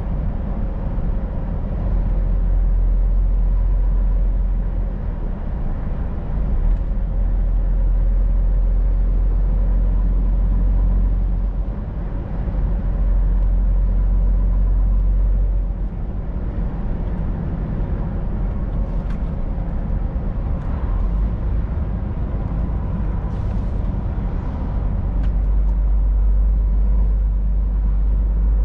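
Scania R500 truck on the move: a steady, deep drone of the diesel engine and road noise, dipping and swelling in loudness several times as the load on the engine changes.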